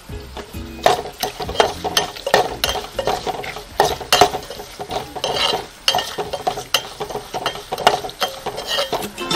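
Steel spoon stirring and scraping against a metal pot, about two or three scrapes and clinks a second, as chillies, garlic and ginger fry in oil with fenugreek powder being mixed in.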